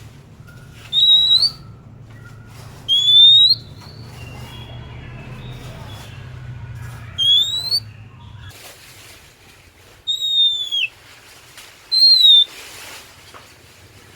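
Oriental magpie-robin (kacer) singing: five loud, clear whistled notes a few seconds apart, most sliding upward and one falling, with softer short twitters between them. A low hum runs underneath for the first two-thirds and then stops.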